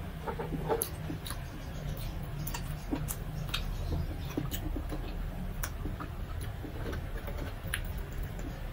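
Close-miked eating sounds: irregular wet mouth clicks and smacks from chewing food eaten by hand, over a low steady hum.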